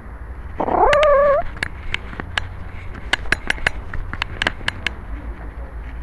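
A cat meows once, loud and close to the microphone, the call rising in pitch and lasting under a second. After it come a dozen or so sharp, irregular clicks over the next few seconds.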